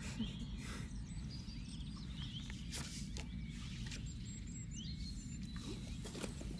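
Outdoor field ambience: a steady low rumble with small birds chirping in the background, and a couple of soft rustles about three and six seconds in.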